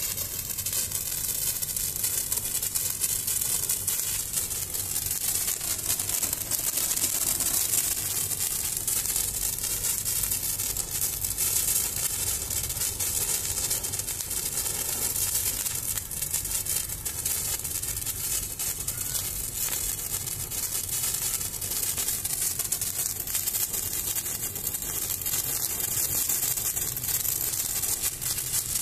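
Coronation T20 pencil-torch firework burning in the hand: a steady hissing spray of sparks with fine crackling all through.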